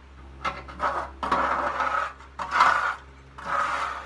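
Several bursts of scraping and rubbing as objects are shifted and dragged across a surface, the longest about a second long.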